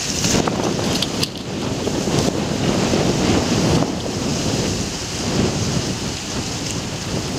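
Wind buffeting the microphone: a gusty low rumble that swells and fades over a steady hiss.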